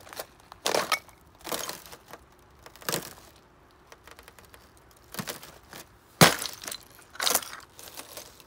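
Thin, clear creek ice cracking and crunching under footsteps: about half a dozen sharp breaks, the loudest about six seconds in. The breaking ice sounds like glass and stones.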